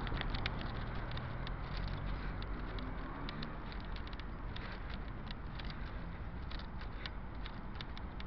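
Road traffic running steadily at a roundabout, with a low rumble. A vehicle engine's hum rises and falls about three seconds in, and small clicks are scattered throughout.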